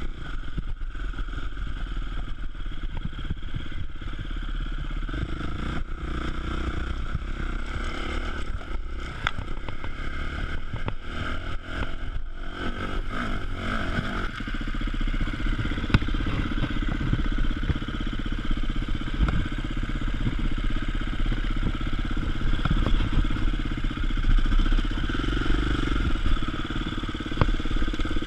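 Enduro dirt bike engine running, heard from the bike itself, with clatter and knocks from riding over rough ground.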